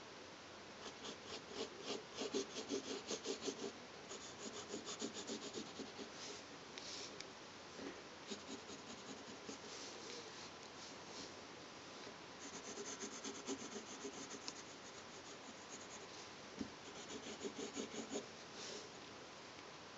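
Graphite pencil scratching on drawing paper in quick back-and-forth strokes while an eye outline is traced and darkened. The strokes come in several short runs, with pauses between.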